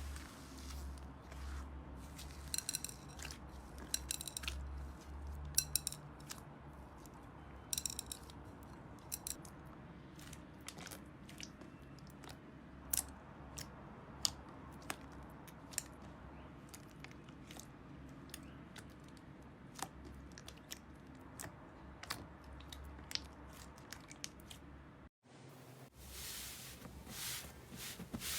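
Slime being pressed and worked by hand, making scattered sharp little clicks and pops as air pockets burst, some in quick crackly runs, over a low steady hum. Near the end a brief cut leads into denser crackling.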